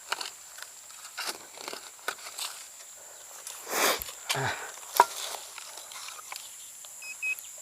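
Footsteps and rustling through ground litter while a metal detector is swept, over a steady high-pitched drone. There is a sharp click about five seconds in, and short electronic tones from the Teknetics Eurotek metal detector near the end.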